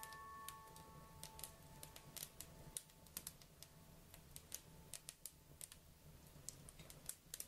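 A near-silent gap in the background music: a chord of chime-like ringing notes fades away over the first couple of seconds, leaving faint, irregular sharp clicks over a low hum.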